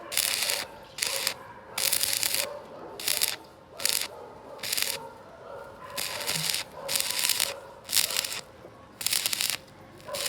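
Abrasive rubbing strokes on a workpiece, one rasping stroke roughly every second in an uneven back-and-forth rhythm, each stroke short and hissy.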